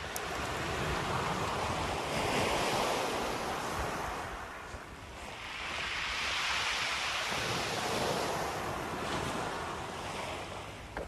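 Small waves breaking and washing up a shingle beach, the surf noise swelling and fading twice, with wind buffeting the microphone underneath.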